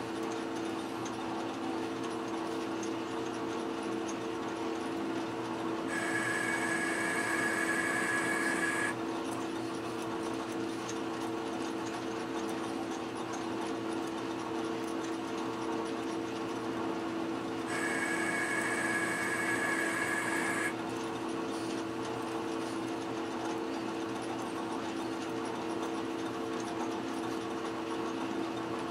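Metal lathe running steadily while a threading tool cuts an internal 14-threads-per-inch thread. Twice, about 6 and 18 seconds in, a higher cutting whine rises over the machine hum for about three seconds as the tool takes a pass.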